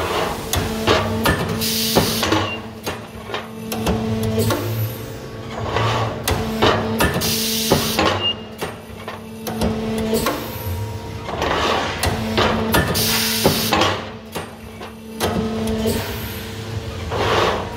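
APS RPS-504 punching machine punching holes in steel plate: quick runs of sharp punch strokes in groups, over a steady machine hum, with a short hiss every few seconds.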